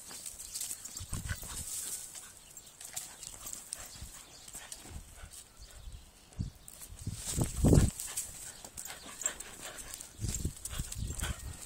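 A bulldog close to the microphone, breathing and snuffling as it jumps up and paws, with scuffs and rustles of dry leaves and dirt. A louder, low-pitched dog sound comes about two-thirds of the way in.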